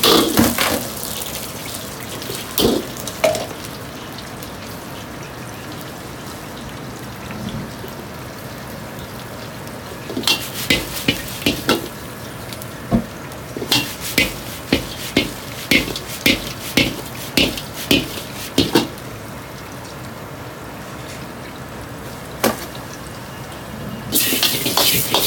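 Carbon-steel wok being worked with a metal ladle over a gas burner: ladle clattering and scraping against the wok at the start, then a steady hiss of frying. In the middle comes a run of sharp metal taps about twice a second for several seconds, and the clattering of stirring and tossing starts again near the end.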